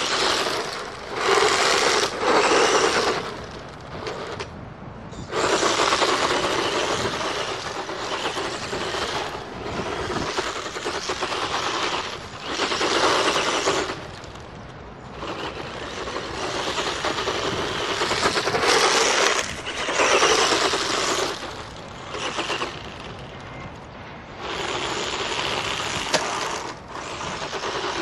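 Tamiya Hornet electric RC buggy driven hard over sandy gravel: its brushed electric motor and gears whirring under throttle while the tyres scrape and spray grit. It comes and goes in bursts of a second or two as the buggy speeds up, turns and backs off.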